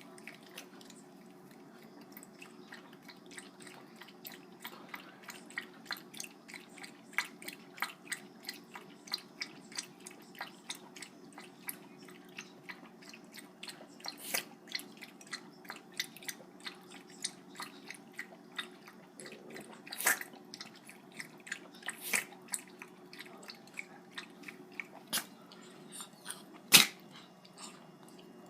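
Dog sneezing and snorting in a long run of short, sharp bursts, about two a second. Several louder sneezes come in the second half, the loudest near the end.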